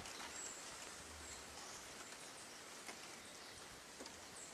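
Quiet outdoor ambience by a small river: a faint even hiss with a few soft ticks and some faint short high chirps.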